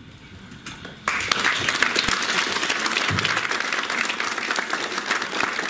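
Audience applause: many people clapping, starting suddenly about a second in and continuing steadily.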